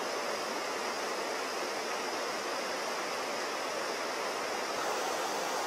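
Mountain stream flowing over rocks: a steady, even rush of water.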